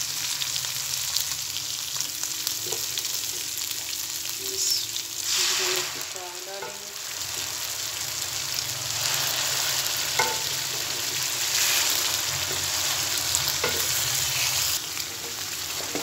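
Chopped ginger and green garlic sizzling in hot oil as a tadka in an aluminium pan, stirred with a wooden spoon. The sizzling swells about five seconds in, and again from about nine to fifteen seconds in.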